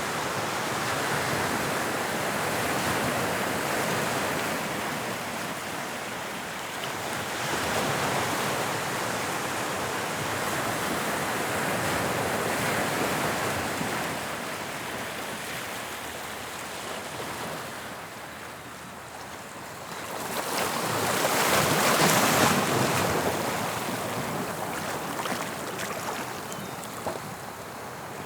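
Sea waves breaking and washing on the shore of the English Channel, the surf swelling and ebbing in slow surges, the biggest wave breaking about two-thirds of the way through.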